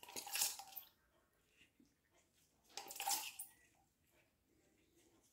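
Water splashing twice, about three seconds apart, as a gloved hand works water from a glass measuring cup into a crumbly flour-and-sugar cobbler topping.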